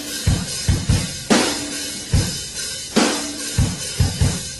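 Music: a drum kit playing on its own, bass drum beats with a cymbal crash about every second and a half.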